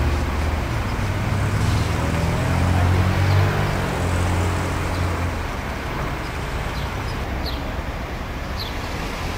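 A low, steady engine hum of road traffic, loudest about three seconds in. A few short, high chirps come near the end.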